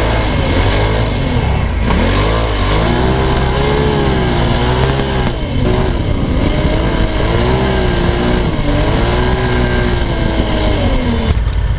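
Side-by-side UTV engine heard from onboard, revving up and down again and again as it is driven across sand dunes. The engine sound cuts off near the end.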